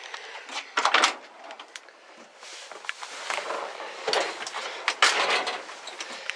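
Clunks, scuffs and rattles of someone getting into the cab of a 1964 Ford F100 pickup to try the brake pedal, with louder knocks about a second in and about five seconds in.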